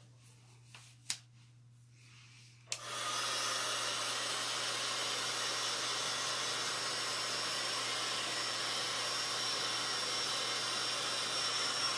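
Handheld craft heat tool switched on about three seconds in, then blowing hot air with a steady, even whoosh.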